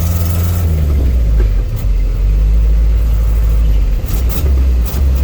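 Hyundai truck engine running with a loud low rumble, heard while the truck is being driven; a few short clicks come near the end.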